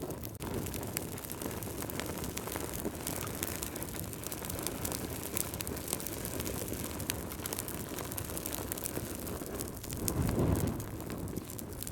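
Wood fire burning in a fireplace: a steady low rumble of flames with frequent sharp crackles and pops from the logs. The rumble swells louder about ten seconds in.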